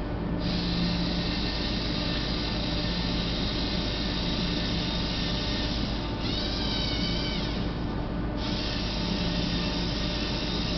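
LEGO Mindstorms robot's geared drive motors whining steadily as it drives straight. About six seconds in, a higher, wavering whine joins for about two seconds as the robot turns a corner of its square path.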